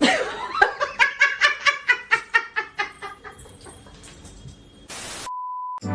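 A hen clucking over and over, a few clucks a second, fading over about four seconds. Near the end a brief burst of hiss, then a short steady beep.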